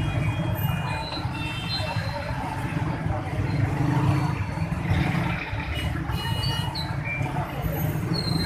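Gram-flour batter drops deep-frying in a large iron karahi of hot oil, pressed through a perforated ladle: a steady sizzling hiss over a steady low rumble.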